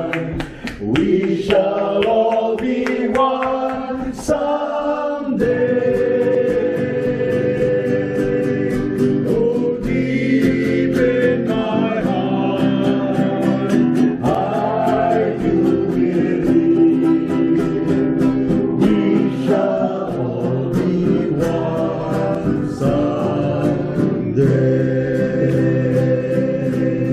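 A group of voices singing a hymn together, accompanied by a strummed guitar.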